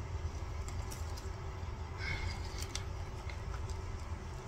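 Quiet background with a steady low rumble and a few faint rustles and clicks from handling a plant cutting.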